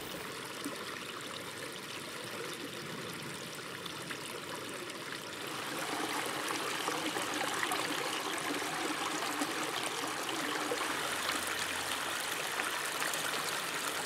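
Water of a small backyard pondless waterfall and stream trickling and splashing over rocks, steady throughout and a little louder from about halfway through.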